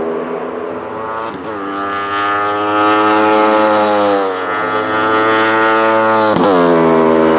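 Wolf GB08 Thunder sport-prototype passing at speed, its Aprilia RSV4 1,000 cc V4 superbike engine at high revs. The engine note rises about a second and a half in, holds, and drops around four and a half seconds in. It falls sharply again as the car goes past close by near the end, and it is loudest in the second half.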